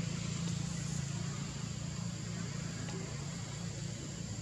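Steady outdoor background noise: a low, engine-like hum under an even high hiss, with no distinct sound standing out.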